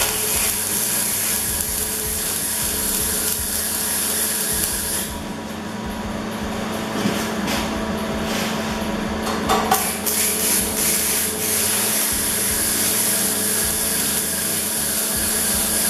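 Wire-feed welder arc crackling and hissing steadily while welding steel angle onto a steel plate, in two runs: one for about the first five seconds, the next from about ten seconds in. A steady hum sounds underneath throughout.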